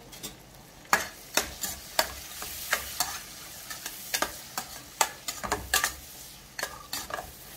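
A steel ladle scrapes and knocks against a stainless-steel kadhai, stirring spiced onion-tomato masala as it fries in oil. The sharp clicks come every half second or so from about a second in, over a steady sizzle.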